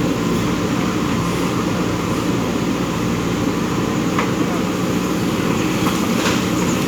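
Diesel engine of a JCB 3DX backhoe loader running steadily at working revs, with a couple of faint clicks about four and six seconds in.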